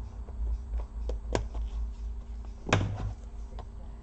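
Small clicks and taps of plastic as the retaining clips of an Acer Aspire 5738 laptop keyboard are pushed back and the keyboard is worked loose. Two clicks stand out, the louder about three-quarters of the way through, over a low steady rumble.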